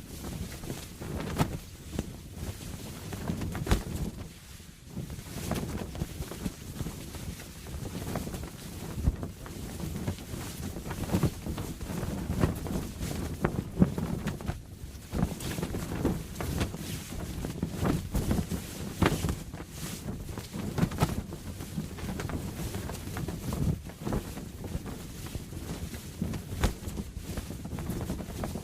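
Canvas sail flapping in strong wind: a constant rush of wind broken by irregular sharp snaps and flutters as the cloth whips.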